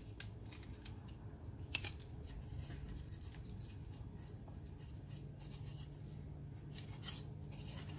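Tape being pulled from a roll and pressed and rubbed onto the back of a chainsaw top cover: soft crinkling and rubbing with scattered small clicks, one sharper tick a couple of seconds in.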